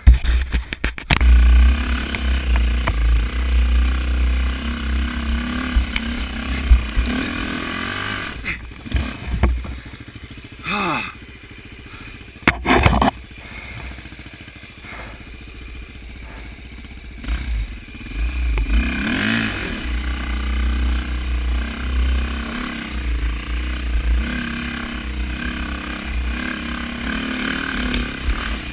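Dirt bike engine revving hard on a steep rocky hill climb, with clatter and scraping as the bike works over rocks. The engine is loud for the first several seconds, drops back through the middle with a few sharp knocks, then picks up again.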